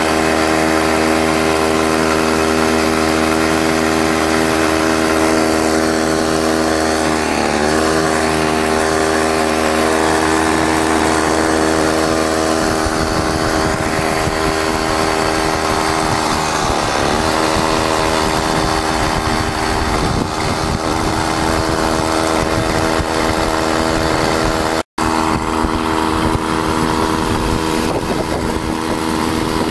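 A 32cc two-stroke Craftsman string-trimmer engine, converted into a canoe motor, running steadily under way. Its pitch dips briefly twice.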